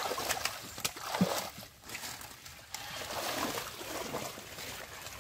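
Splashing, sloshing and squelching of hands and feet working through shallow muddy water, in irregular bursts with small sharp splatters.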